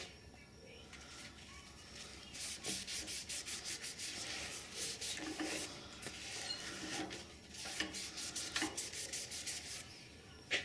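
Sandpaper rubbed back and forth on a wooden tool handle by hand, in runs of quick hissing strokes.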